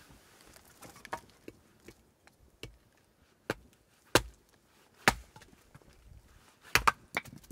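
Hatchet splitting kindling on a wooden chopping block: sharp chops of the blade into wood, with the stick wedged on the blade knocked down against the block to split it. The strikes come about a second apart, with a quick double strike near the end.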